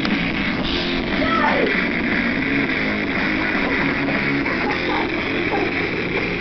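Rock music with guitar playing at a steady level.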